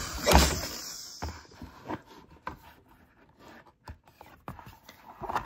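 Fingertip rubbing and tapping on the glossy cardboard page of a board book, making soft scrapes and small clicks. A brief loud rushing hiss comes just after the start and fades within a second.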